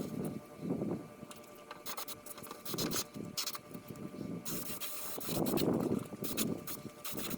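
Air spray gun hissing in short, repeated bursts as a heavy frame coating is sprayed on, with one longer burst a little past the middle.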